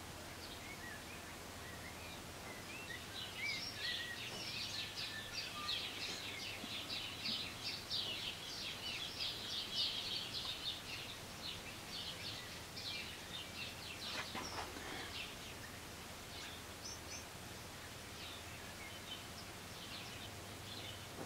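Small birds twittering and chirping, a dense run of quick high chirps from a few seconds in to about two thirds of the way through, then only scattered calls, over a faint steady low hum.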